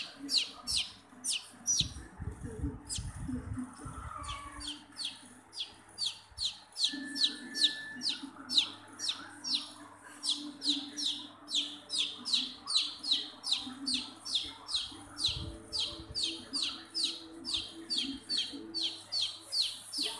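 A chicken chick held in the hand peeping loudly: a steady run of short, falling, high-pitched peeps, about two or three a second, with a brief pause a few seconds in. The loud, unbroken peeping is the distress call of a chick taken from its flock. Some low handling rumble comes in a couple of seconds in.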